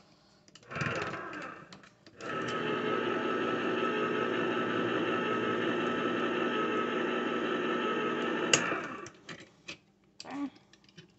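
Hamilton Beach electric can opener running, turning a can as its blade cuts around the lid: a short first burst about a second in, then a steady motor hum for about six seconds that stops with a click.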